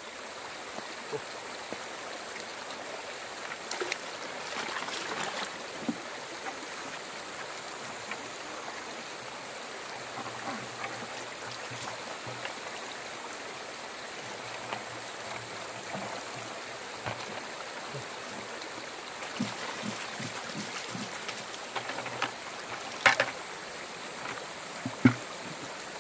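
Shallow river water running steadily, with sloshing and splashing from hands working a bucket of sediment and a plastic gold pan in the water. Two louder, sharp hits come near the end.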